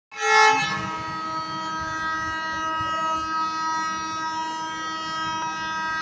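Indian WDM diesel locomotive's air horn sounding one long, steady multi-tone blast, loudest in its first half second, over the low rumble of the train.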